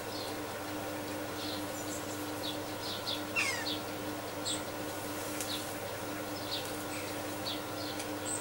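Small birds chirping in short, quick falling notes, scattered irregularly over a steady background hum.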